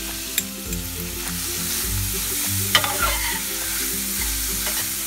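Crab meat and onions sizzling in butter in a stainless steel frying pan, stirred with a metal spatula that clicks against the pan a couple of times.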